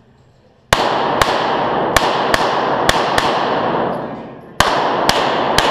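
Glock 17 9mm pistol fired rapidly in a reverberant indoor range: nine shots, mostly in quick pairs, with a pause of over a second before the last three. Each shot echoes and dies away.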